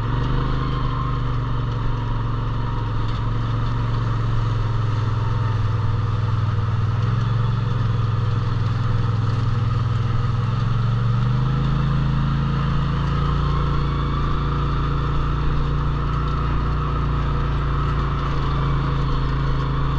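A vehicle engine running steadily under way, with a constant hum and road noise. A little over halfway through, the hum steps up slightly in pitch as the engine speed rises.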